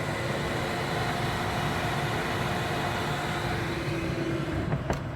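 An old electric food dehydrator running with its fan: a steady hum with a few held tones, and a single light click near the end.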